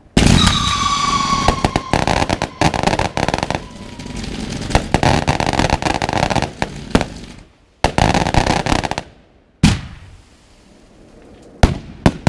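A fireworks battery firing from the ground. It starts suddenly with a loud whistle that sinks slightly in pitch over about two seconds, amid a dense, rapid run of launches, bangs and crackling lasting about seven seconds. After a short pause comes a second brief salvo, then a few single bangs.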